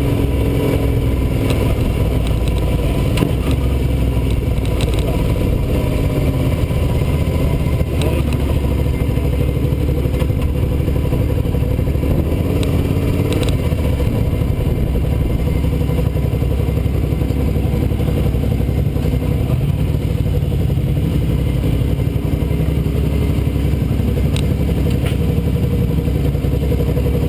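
Sport motorcycle engine running at low revs as the bike rolls slowly, heard from a mount behind the windscreen, the revs sinking toward idle.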